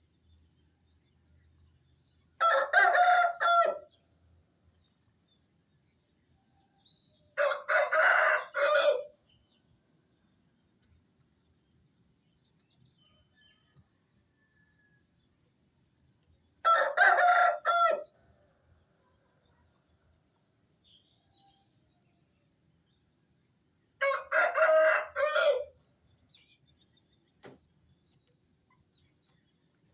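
Aseel roosters crowing four times, one full cock-a-doodle-doo after another with long gaps between, over a steady high chirring of crickets.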